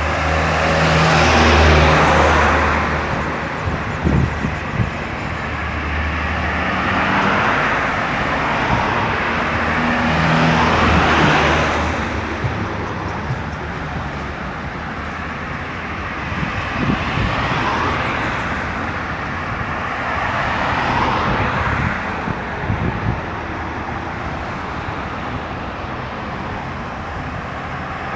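Road traffic on a busy highway, with vehicles passing one after another. Their tyre and engine noise swells and fades every few seconds over a constant hum, and a heavier vehicle's engine is heard near the start.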